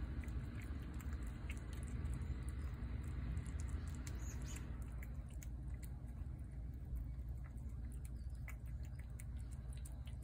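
Cat eating wet chicken pâté from a plate: many quick, small clicks of chewing and licking over a low steady rumble.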